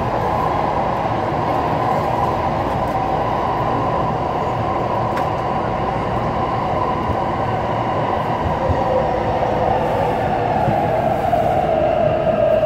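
Taipei Metro C371 train running in a tunnel, heard from inside the car: a steady rumble of running noise. About eight seconds in, a tone begins to fall in pitch as the train starts to slow for the next station.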